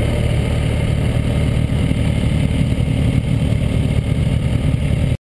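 Sportbike engine running at low speed as the bike rolls slowly, with a steady low pulsing. It cuts off suddenly about five seconds in.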